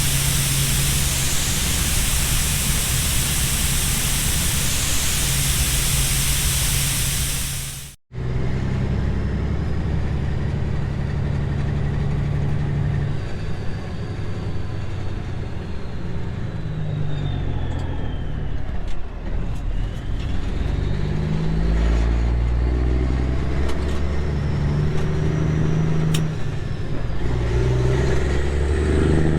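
For the first eight seconds, a loud steady hiss over a low hum. Then, after a sudden cut, a grain truck's engine runs under load, its pitch stepping up and down as it moves through the gears.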